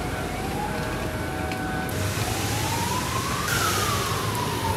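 Emergency vehicle siren wailing, its pitch rising slowly and then falling again, over the steady noise of city street traffic.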